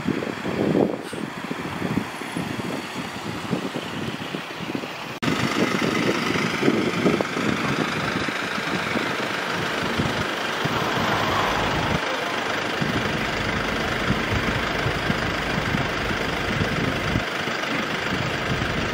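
Vehicle engines idling, a steady noise with no siren, and louder after an edit about five seconds in.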